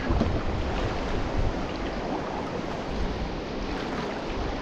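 Strong river current rushing past a solo whitewater canoe, with wind buffeting the microphone: a steady rushing noise.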